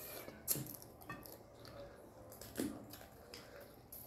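Faint, scattered eating sounds as whole crab is picked apart and eaten by hand: a few short clicks and soft wet squishes, about three in all.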